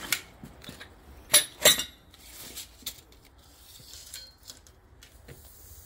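Metal hand tools being handled: a few sharp metallic clinks and clacks, two loud ones in quick succession about a second and a half in, then faint ticks.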